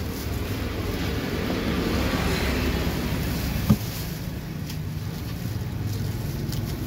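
Steady low rumble of motor traffic that swells and fades a couple of seconds in. About halfway through, a kitchen knife knocks once, sharply, on a plastic cutting board.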